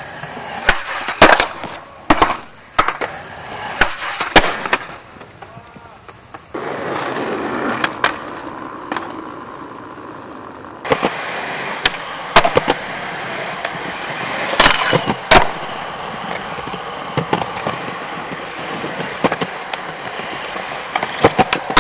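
Skateboard wheels rolling on concrete, with repeated sharp clacks of the board popping off and landing.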